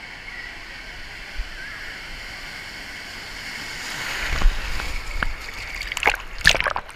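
A wave surging through a wave pool: steady water noise swells into a rush about four seconds in. Near the end come several loud, sharp splashes of water right at the microphone.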